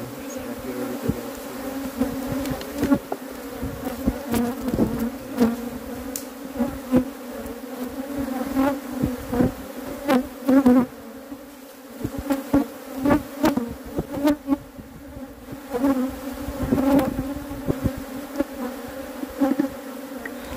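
Honeybees (Apis mellifera) buzzing in numbers around opened hives: a steady low hum. Frequent short knocks and clicks from hive equipment being handled sound over it.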